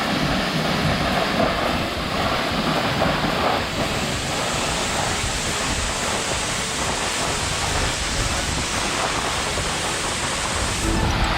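Steady rush of the Asenema Waterfall's falling water, a dense even noise. Right at the end it breaks off into music.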